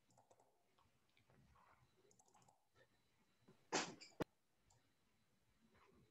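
Near silence with faint scattered clicks of a computer mouse and keyboard, a short burst of noise about three and a half seconds in, and a single sharp click right after it.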